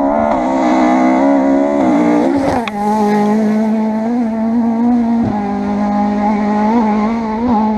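Rally car engine screaming at high revs on a stage, with a brief dip in revs and a sharp crack about two and a half seconds in, then holding a high, steady note with small wobbles.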